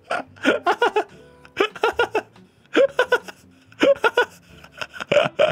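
A man laughing in several fits of short, rapid, high-pitched laughs with brief pauses for breath between them.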